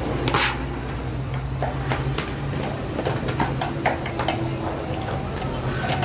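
Light scrapes and clinks of a metal peel shifting feteer pies around the floor of a wood-fired oven, over a steady low hum.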